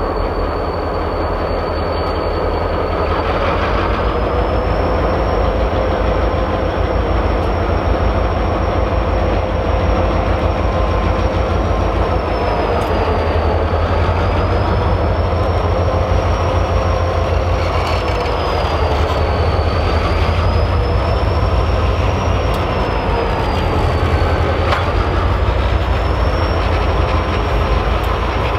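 A train rolling past, with a heavy steady rumble of wheels on rail and a thin high wheel squeal that wavers slowly up and down in pitch every few seconds.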